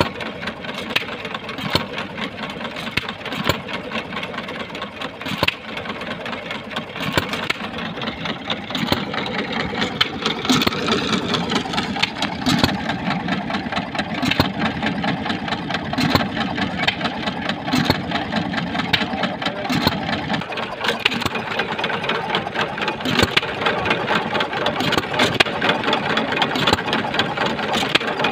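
Vintage single-cylinder hit-and-miss stationary engines running, with sharp exhaust pops at short, uneven intervals as they fire and then coast, over a steady mechanical clatter.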